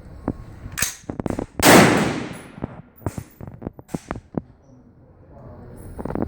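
A single loud shot from a Bushmaster Patrolman AR-15 rifle, fired a little under two seconds in and trailing off over about a second, with light clicks and knocks of handling around it.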